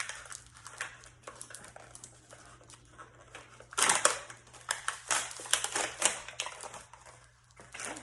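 Homemade slime being squished and kneaded by hand, giving quick crackling clicks and pops, densest and loudest from about four to seven seconds in.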